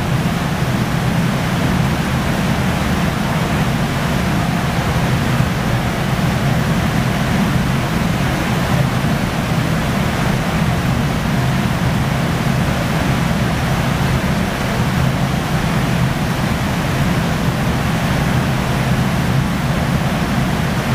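Steady, loud roar of a glassblowing hot shop: the furnaces' burners and the large fans running without a break.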